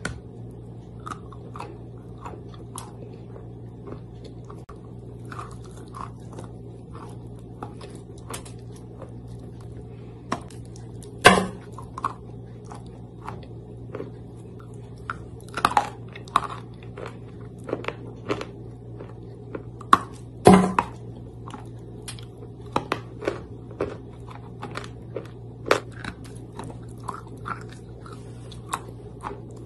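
Soaked chalk being bitten and chewed: repeated wet crunches and chewing, with two loudest bites, one about a third and one about two-thirds of the way through. A steady low hum runs underneath.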